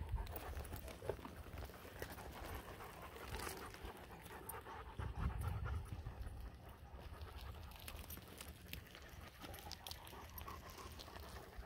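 A dog panting hard, with low rumbling gusts on the microphone, the strongest about five seconds in.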